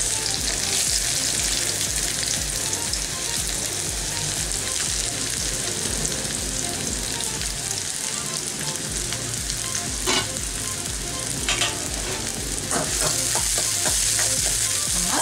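Sliced onions sizzling in hot oil with whole spices in a metal kadai, a steady frying hiss. From about two-thirds of the way in, a spoon scrapes and clinks against the pan as the onions are stirred.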